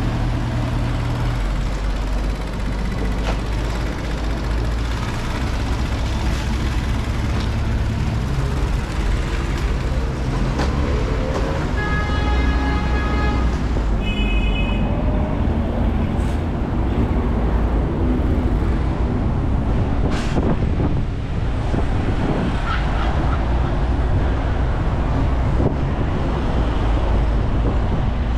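Busy street traffic: a steady rumble of passing cars and trucks. About midway a pitched tone sounds for a second and a half, then a shorter, higher one.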